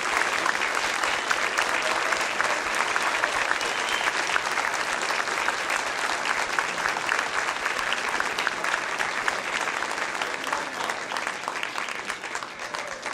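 Audience applauding steadily, the clapping thinning a little near the end.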